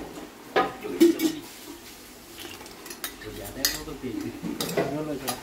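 Metal spoon stirring in a cooking pan, with several sharp clinks of spoon against pan, the loudest about a second in.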